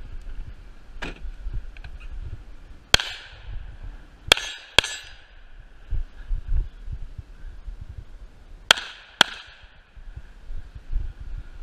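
Handgun shots: a faint crack about a second in, then five sharp shots, the last four in two quick pairs about half a second apart, each with a short echo.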